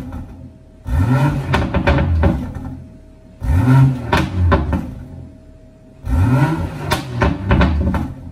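BMW 440i's B58 turbocharged inline-six exhaust as the engine is free-revved three times, each blip rising quickly and falling back over about two seconds, with pops and crackles as the revs drop.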